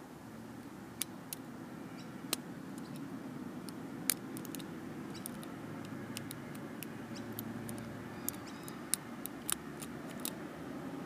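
Irregular sharp metallic clicks from a lock pick and tension tool working the pins of a brass Abus 85/50 padlock, about a dozen over the stretch, over a steady low background rumble.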